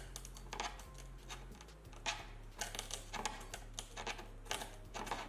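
Irregular sharp clicks and short scrapes of hand work on a car's rear spoiler, as it is scraped and prised free of the glue holding it to the hatch glass.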